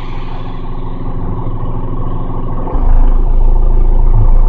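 Car engine and road noise heard from inside the moving car, a steady drone that suddenly grows louder and deeper about two and a half seconds in.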